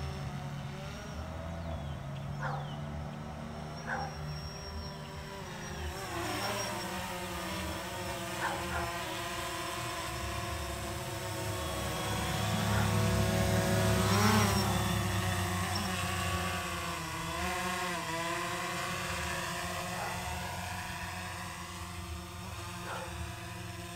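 DJI Phantom 3 Standard quadcopter's propellers buzzing with a steady whine of several tones. The pitch shifts as it manoeuvres, and it is loudest about fourteen seconds in as it passes close.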